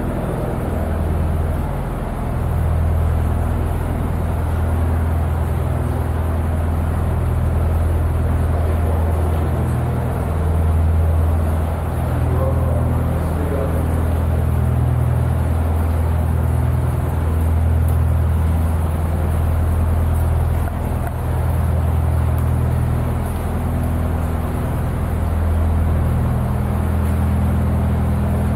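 Narrowboat engine running steadily under way, a low drone that swells and eases slightly every couple of seconds, heard inside a stone-lined canal tunnel.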